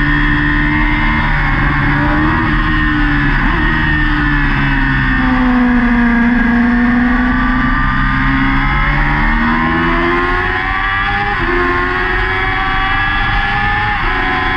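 Yamaha R6's inline-four engine at racing revs, heard onboard over wind rush. The revs sag about halfway through, then climb again, with several quick gear changes in the last few seconds.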